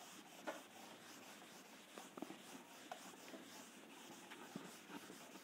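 Near silence with faint, scattered taps and scratches from work at a teaching board.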